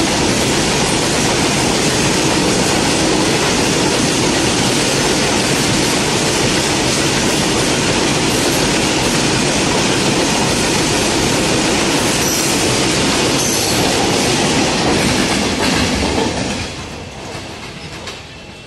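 Coal-loaded BOXNHL open wagons of a freight train rolling past close by: a loud, steady rumble and rattle of wheels on rails. It fades quickly about sixteen seconds in as the train moves away.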